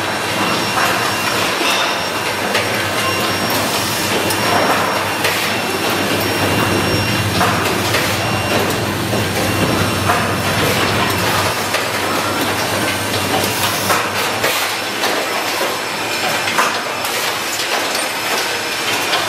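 Automatic switch assembly machines running: a dense, steady clatter of rapid clicks and knocks from their mechanisms, over a hiss and faint steady high whines.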